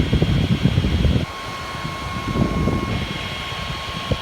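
Air-conditioning unit's fan running with a steady low rumble, loudest for the first second. A thin steady whine starts abruptly about a second in.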